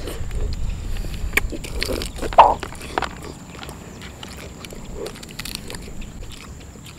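Close-up mouth sounds of eating balut (boiled fertilized duck egg): biting and chewing with wet clicks and smacks, the sharpest about two and a half seconds in.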